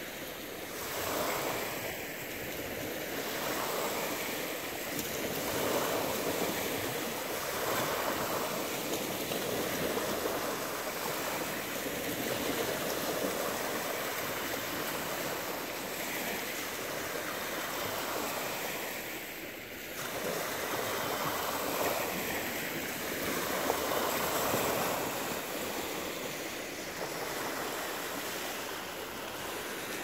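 Small ocean waves breaking and washing up a pebbly shore: a continuous wash of surf that swells and eases every few seconds.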